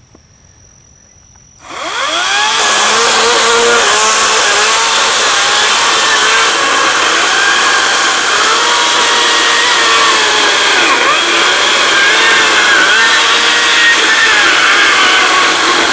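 Echo 58V battery-powered chainsaw spinning up about two seconds in and cutting through a log, the chain rasping through the wood as the motor's pitch dips and recovers under load. It keeps running through the cut without shutting off, the random cut-out this saw is being tested for.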